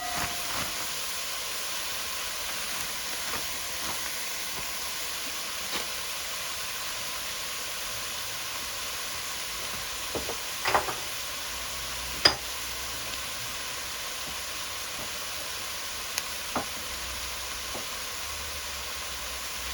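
Frozen spinach frying in hot oil in a pan: a steady sizzle, with a few short knocks about halfway through and two more near the end.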